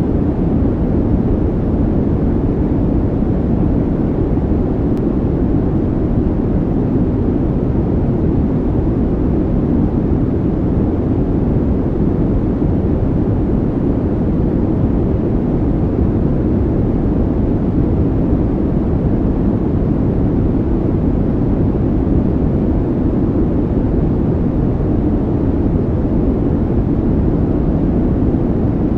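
Steady, unchanging low rumbling noise, laid on as a calming background sound track.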